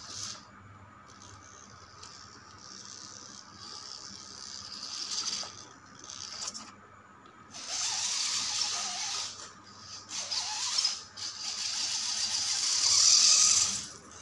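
Small electric RC car's motor and gears whirring and rattling as it drives on a concrete floor. The sound comes in spurts with short stops, fainter at first, then much louder from about halfway, and loudest near the end.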